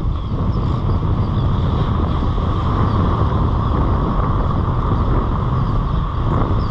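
Steady noise of surf breaking and washing up the beach, with wind buffeting the microphone as a constant low rumble.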